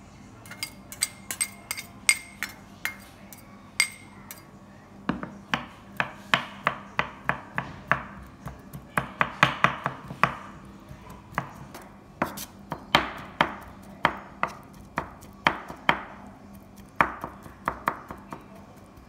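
Large kitchen knife chopping preserved soybeans on a bamboo cutting board: repeated sharp knocks, about two or three a second, with a quicker run of chops near the middle. It opens with a few ringing clinks of a spoon against a ceramic bowl as the beans are tipped out.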